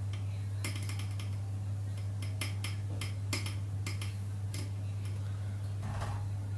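A steady low hum, with a dozen or so faint, irregular clicks and ticks over it.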